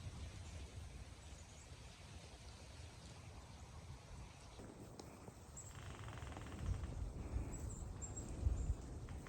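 Quiet woodland ambience: a steady low rumble with a few faint, high bird chirps, and a short rapid rattling trill about six seconds in.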